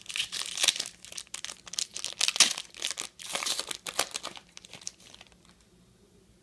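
A trading card pack's wrapper crinkling and tearing as it is opened, a quick run of crackling rustles that stops about five seconds in.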